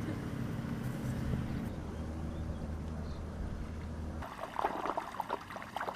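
A steady low motor hum, which gives way about four seconds in to irregular splashing and knocking of water.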